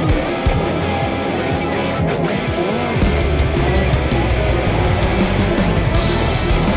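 Background rock music with electric guitar and a steady beat; the bass gets heavier about three seconds in.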